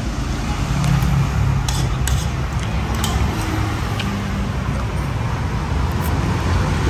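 Steady low rumble of road traffic, with a few light clicks of a metal spoon and fork against a plastic bowl.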